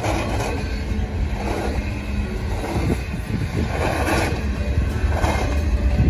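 Double-stack intermodal freight train rolling past, a steady heavy rumble of container cars on the rails.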